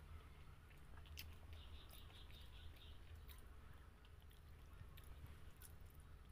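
Faint chewing with a few soft mouth clicks, over a low steady hum.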